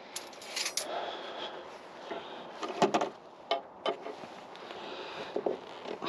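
Scattered knocks, clanks and short scrapes of steel rebar being handled and bent into stirrups on a hand-operated bending jig, with the sharpest knocks about three seconds in.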